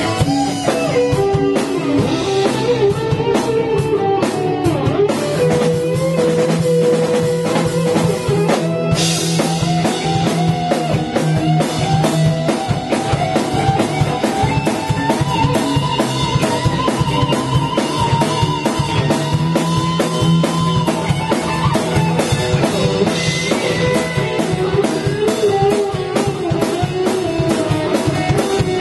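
Rock band playing an instrumental passage live: an electric guitar carries the lead melody, holding one long high note for several seconds midway, over guitar and a steady drum kit beat.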